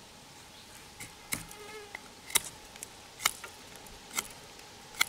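Folding knife blade shaving slivers off a green wooden stake, six sharp cutting strokes about once a second.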